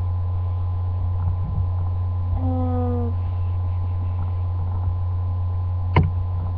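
Steady low electrical mains hum in the recording, with a short murmured vocal sound about two and a half seconds in and a sharp click near the end.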